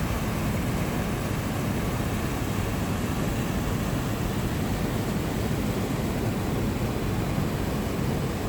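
Waterfall rushing: falling water making a steady, even noise across all pitches.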